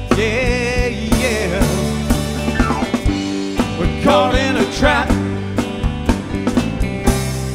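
Live rock band playing with drums, bass, guitars and keyboard, and a wavering melody line with vibrato over the top.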